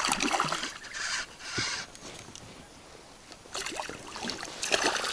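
Irregular splashing and handling noises as a hooked chub is brought in to an inflatable boat, in two spells with a quieter lull in the middle.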